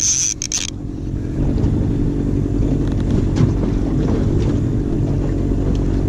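Boat's outboard motor running steadily at trolling speed, a low even drone. A high hiss stops abruptly about a second in.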